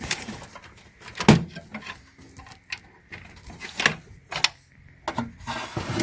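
Irregular clicks and knocks of hands handling cables and parts inside a desktop computer case, the loudest about a second in.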